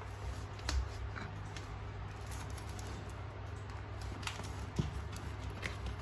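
A cardboard box being handled and turned, with a few sharp knocks and rustles. The loudest come just under a second in and just before five seconds, over a steady low hum.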